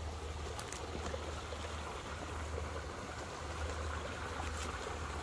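Steady trickling rush of water flowing along the old canal bed, now a drainage ditch, with a low rumble underneath.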